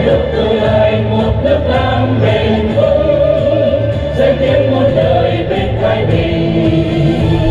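Music with a choir singing a slow song over a steady bass accompaniment.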